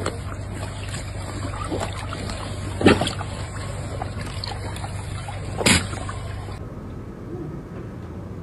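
A flock of sheep drinking from a water trough, water sloshing and splashing, with two short louder sounds about three and six seconds in.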